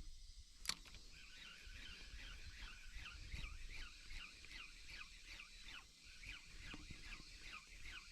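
Birds chirping in a fast run of short falling calls. A single sharp click comes just before the calls start.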